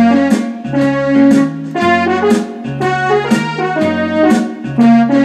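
Electronic arranger keyboard playing a blues piece, starting suddenly: chords struck about twice a second over a repeating low bass line.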